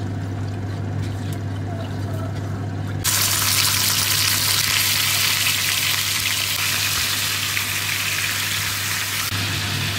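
Oil and brown sugar heating in a non-stick pan over a steady low hum. About three seconds in, a loud sizzle starts abruptly as pork belly pieces go into the hot oil and caramelising sugar. It eases somewhat near the end.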